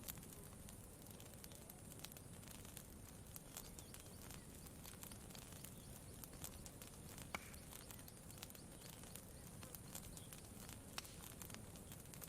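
Campfire crackling faintly: irregular sharp snaps and pops over a low steady rumble, with the sharpest pops about seven and eleven seconds in.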